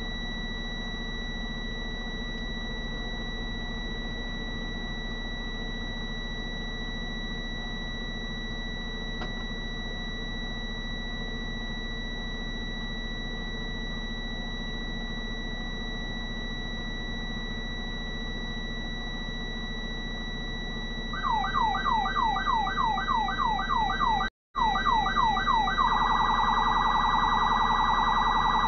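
Police car siren starting up about three-quarters of the way in: a yelp of quick falling sweeps, about three a second, switching near the end to a fast warble. Before it, only a steady low hum with a constant high-pitched whine.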